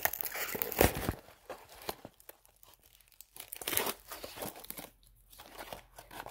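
Small corrugated cardboard box being pulled and torn open by hand: irregular rips and crinkles, the loudest about a second in.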